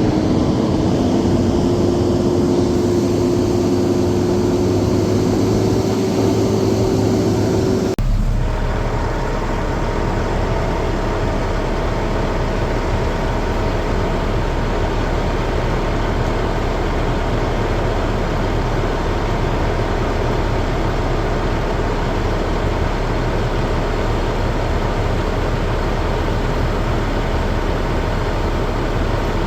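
Truck engine and road noise heard from inside the cab while driving, with a hum that rises slowly in pitch. About eight seconds in it cuts abruptly to a different steady engine drone with a fixed tone.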